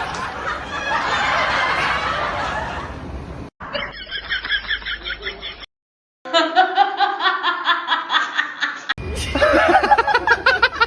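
People laughing in quick repeated pulses. The laughter comes in short stretches that cut off abruptly and start again.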